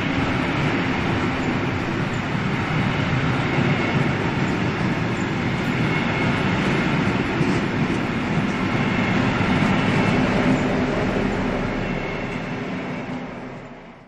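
Diesel-hauled freight train of flat wagons rolling past, a steady rumble of wheels on rail with the diesel locomotive's engine running. The sound fades out near the end.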